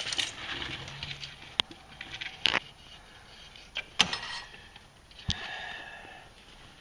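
Hand work on garage door hardware: four sharp metal clicks and knocks, spread across a few seconds, with light scraping and rubbing between them.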